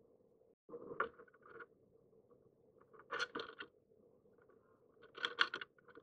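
A crow landing and moving about on the pond's rim, making three short bursts of clicks and scuffs: about a second in, around three seconds, and just after five seconds.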